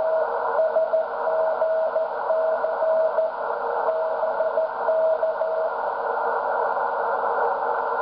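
Shortwave receiver audio on the 160-metre band in CW mode: a Morse code signal, a single tone keyed in dots and dashes, over a hiss of band noise narrowed by the receiver's filter. The Morse stops about two-thirds of the way through, leaving only the noise. The receive-antenna phasing controller is switched off.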